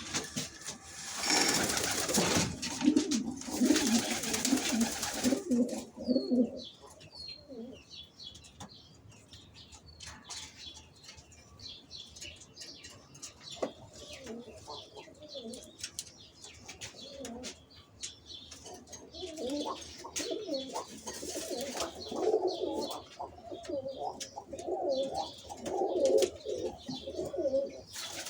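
Domestic pigeons cooing, with a loud flurry of wing flapping in the first few seconds and a few short high chirps just after it.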